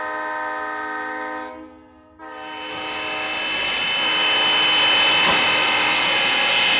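Steam locomotive whistle blowing twice. The first is a steady chord of about a second and a half, then after a short break a second long blast swells as steam hiss builds under it.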